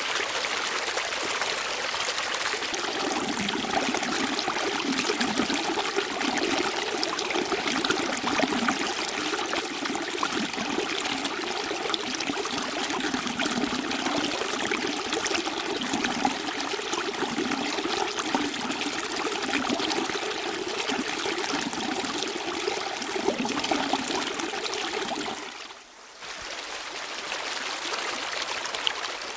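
Running water, a stream trickling and gurgling steadily. The sound briefly drops away a few seconds before the end, then returns.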